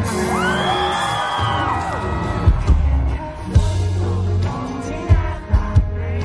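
Live pop-rock band playing, electric guitar and drums, with high-pitched whoops and screams from the audience in the first two seconds and a few sharp drum hits later on.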